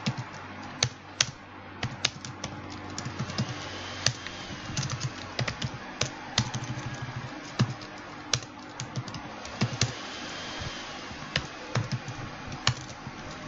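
Typing on a computer keyboard: irregular keystroke clicks, sometimes in quick runs with short pauses, as code is typed in.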